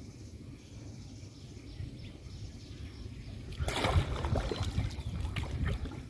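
Water sloshing and splashing against the hull of a small wooden boat moving along a river, over a low rumble. About three and a half seconds in, the splashing gets louder, with a few sharp knocks.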